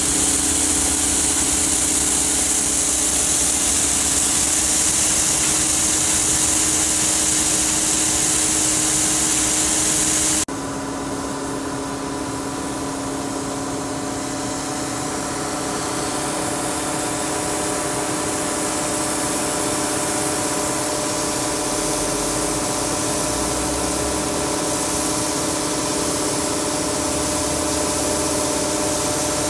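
Stones pouring off a conveyor into a steel barge hold, a loud steady hiss over the hum of running machinery. About ten seconds in it cuts to a steadier machine drone, and a softer hiss of stones falling onto a heap slowly builds back.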